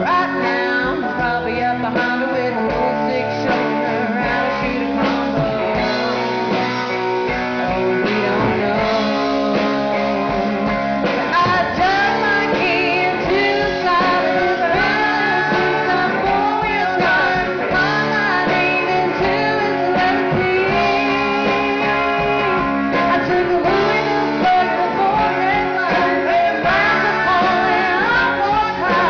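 Live band playing, heard in the room: a woman sings lead over acoustic and electric guitars and drums.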